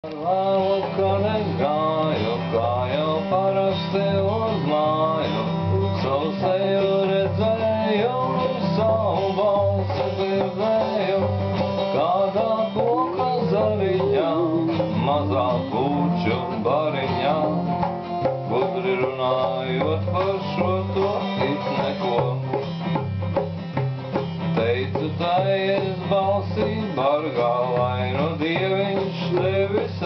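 Acoustic guitar played steadily, the instrumental opening of a song before the singing comes in.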